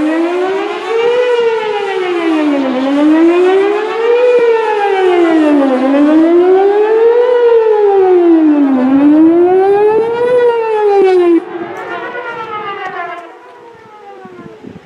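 Whelen WPS-4008 electronic outdoor warning siren sounding a rising-and-falling wail, its pitch sweeping up and down about once every three seconds. It cuts off abruptly about eleven seconds in, and a much fainter sweep carries on for about two seconds more.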